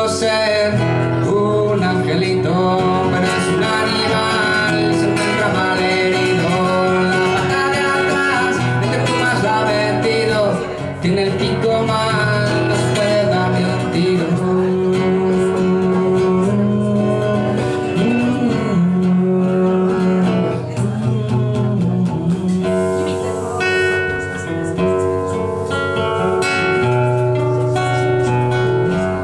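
A man singing live into a microphone while playing an acoustic guitar. Past the middle the voice stops and the guitar plays on alone.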